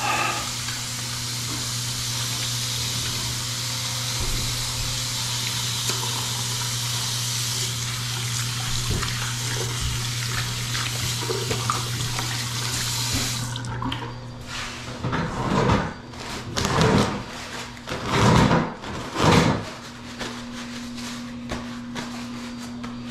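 Bathroom faucet running into a sink while hands are washed under it, shut off about halfway through. Then five or six short rustles of paper towel as the hands are dried, over a steady low hum.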